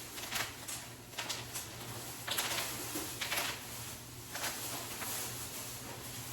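Faint rustling and light handling noises, a few short scrapes a second or so apart, over a steady low hum.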